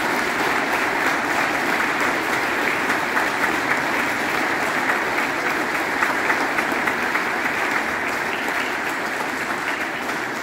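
Church congregation applauding, a steady dense clapping that begins to fade near the end.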